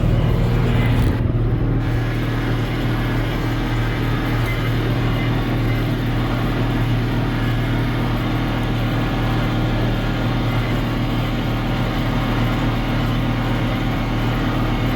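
John Deere 4055 tractor's diesel engine running steadily at an even speed, a deep constant hum with no regular baler knocking.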